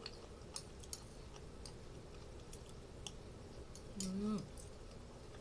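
Small clicks of a spoon against a bowl and quiet chewing, with a short hummed "mmm" about four seconds in that falls away at the end.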